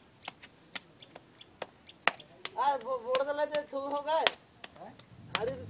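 A lump of wet clay is patted and slapped between a potter's hands, making sharp, irregular slaps and taps. About two and a half seconds in, a drawn-out call sounds over it for nearly two seconds.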